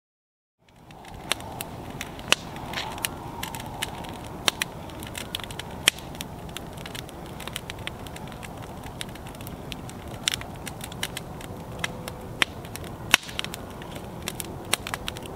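Wood fire burning, crackling with frequent sharp pops over a steady hiss. It starts just under a second in.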